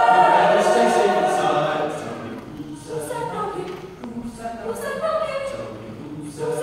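Mixed teenage choir singing: a loud held chord at the start dies away after about two seconds, then quieter phrases follow.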